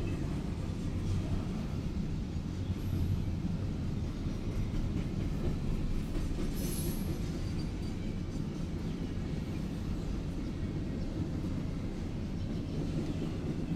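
Double-stack intermodal container train rolling past, its well cars' wheels on the rails making a steady low rumble, with a brief high squeal about seven seconds in. Heard from inside a car.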